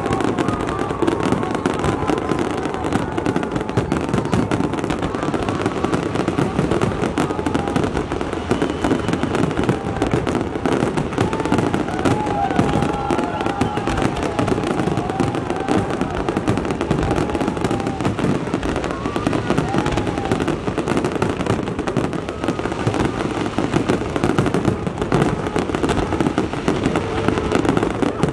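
Fireworks going off in a dense, continuous barrage of rapid bangs and crackling with no pause.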